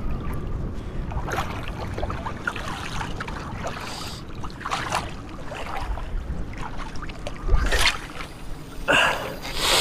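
Wind buffeting the microphone in a steady low rumble, with several short rushing bursts of noise, the loudest two near the end.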